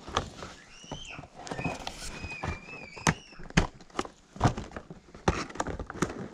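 Scissors snipping and cutting into a cardboard box, with many sharp clicks and knocks as the box and scissors are handled. A high, wavering chirp-like tone sounds for about two seconds near the start.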